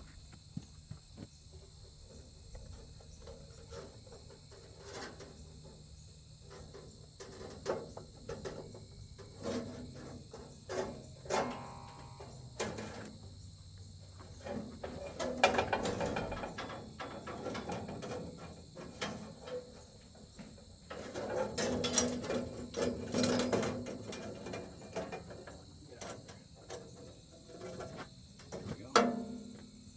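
Insects, crickets by their steady high chirring, keep up a continuous drone, with scattered knocks and rustles of handling close by. The knocks bunch up around the middle and again a little later, and a sharp knock comes just before the end.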